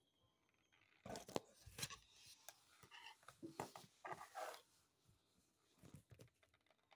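Faint rustling and clicking handling noises, clustered between about one and four and a half seconds in, with a brief bit more near six seconds.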